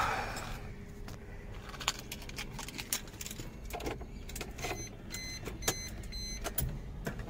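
Car keys jangling and clicking as they are handled and fitted into the ignition on the steering column, with a short run of rapid high beeps about five seconds in.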